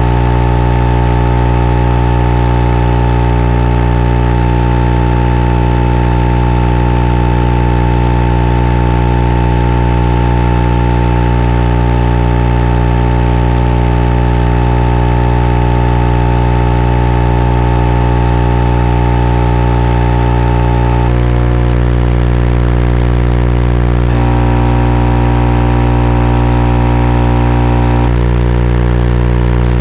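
Steady, loud electrical buzz from an analog FPV video link, made of several fixed tones. A higher tone drops out about two-thirds of the way through, and the mix of tones shifts for a few seconds near the end.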